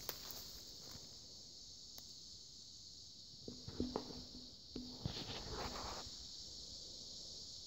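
Steady high-pitched insect chorus, with a short run of crunching footsteps around the middle.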